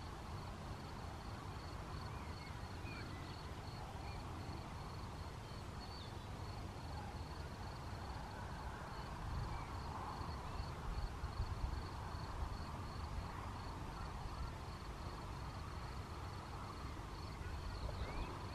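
Open-meadow ambience under a thunderstorm front: a low steady rumble that swells a little about halfway through, with an insect chirping in a fast, even, high-pitched pulse and a few faint bird calls.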